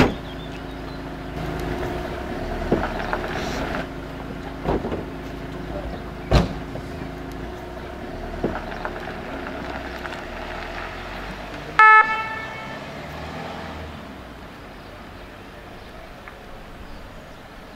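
Renault Master fire-service ambulance: its rear doors thump shut several times over the idling diesel engine, then a short, loud horn toot about twelve seconds in as the van pulls away, its engine fading.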